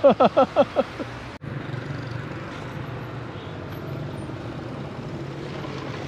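A voice calls out a few short rising-and-falling syllables in the first second. After a cut, steady street traffic noise with engines running.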